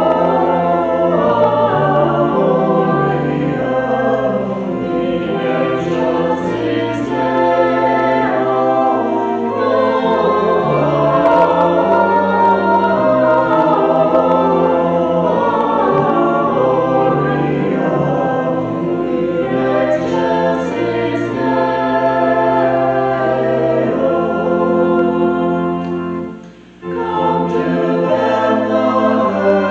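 A choir singing a hymn in sustained, held chords, with a brief break between phrases about three quarters of the way through.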